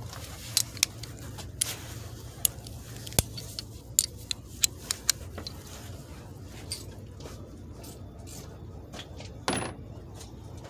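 Metal hand tools clinking and clicking against each other, about a dozen irregular light strikes over the first five seconds, then a short louder scrape near the end.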